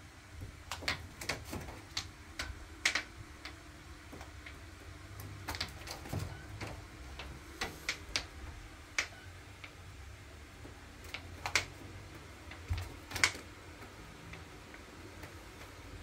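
Irregular sharp taps and clicks on a hard surface, singly and in quick pairs, over a faint steady hum.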